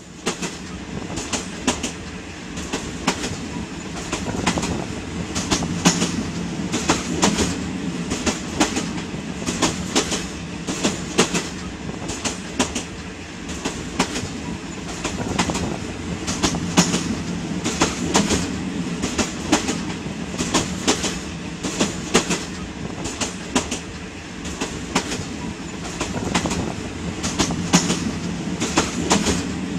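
Moving passenger train heard from inside the carriage: a steady rumble with repeated sharp clacks of the wheels over the rail joints.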